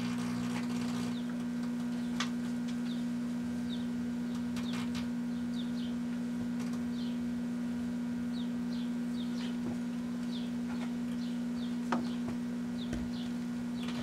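Kenmore microwave oven running with a steady electrical hum while earbud headphones burn inside, with occasional sharp crackles and pops. Short, high, falling chirps repeat over the hum.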